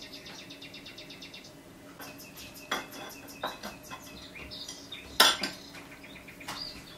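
Kitchen utensil scraping and clinking against a dish, with a quick rattle near the start and a few sharp knocks, the loudest about five seconds in.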